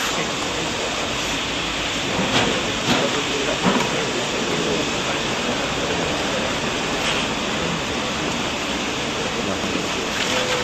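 Steady hiss of a pressurized water jet from a container-rinsing nozzle, rinsing out an empty plastic pesticide jerrycan held over it. A few light knocks of the plastic can come about two to four seconds in.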